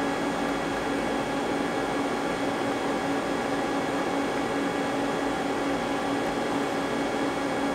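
Steady hum of powered-up shop machinery, a fan-like noise with one steady low tone running under it.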